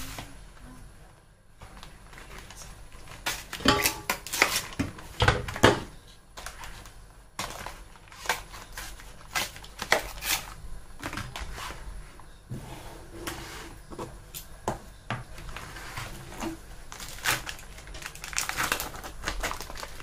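Thin plastic food trays and cardboard sleeves being handled: crinkling, rustling and clicking as dim sum packs are slid out of their sleeves and moved about, with louder bursts about four seconds in and again near the end.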